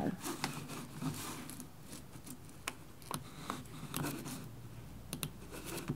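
Scattered light clicks and taps of a laptop keyboard and trackpad, a few keystrokes at a time with short pauses between.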